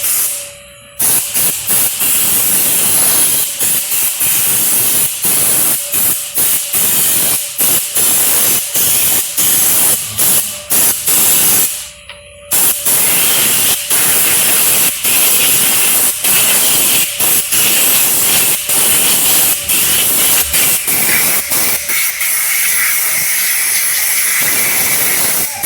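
High-pressure washer jet spraying, a loud steady hiss broken by many brief stops and two longer pauses, about a second in and near the middle, as the trigger is released, while washing mud off a car's underside.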